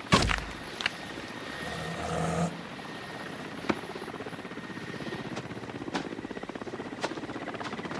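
Helicopter rotor beating steadily over a thin, steady high whine, with a couple of short sharp clicks along the way.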